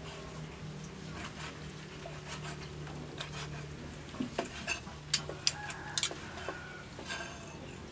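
Meat cleaver chopping boiled beef intestine on a wooden chopping block: scattered sharp knocks, with several louder chops in quick succession a little past halfway.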